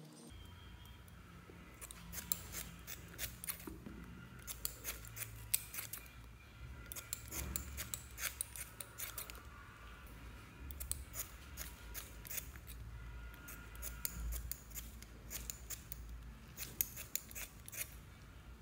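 Scissors snipping through foam makeup sponges, in clusters of quick sharp snips with short pauses between.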